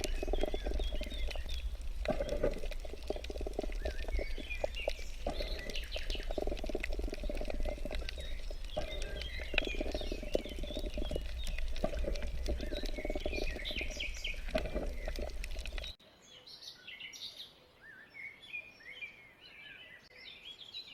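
Small birds chirping and twittering. For most of it they sit over a steady low rumble and busier outdoor noise; about sixteen seconds in that background drops away suddenly, leaving quieter birdsong.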